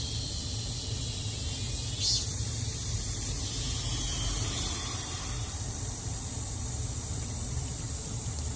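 Cicadas buzzing in a steady high drone. One loud call swells in about two seconds in and cuts out a little after five seconds, all over a low steady rumble.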